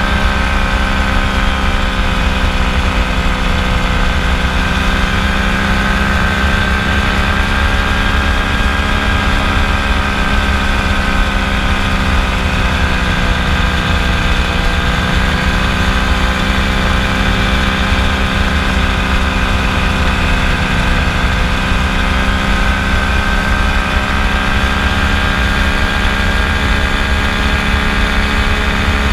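Kolb FireFly ultralight's engine and propeller running steadily in flight, the pitch dipping slightly and coming back up a few times, over a low rumble.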